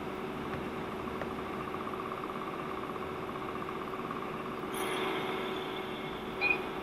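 Dubbed electric-locomotive sound effects: a steady blower hum with a rapid pulsing sound for the first few seconds, then a burst of air hiss about five seconds in, and a brief high-pitched toot near the end.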